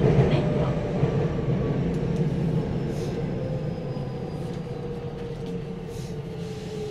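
Tokyo Metro 9000 series train heard from inside the car, running with a steady rumble while a motor tone slowly falls in pitch and the overall sound fades: the train is slowing down.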